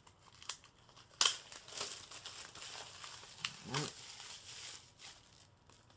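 Plastic shrink wrap being torn and crumpled off a Blu-ray case: a sharp tear about a second in, then a few seconds of crinkling.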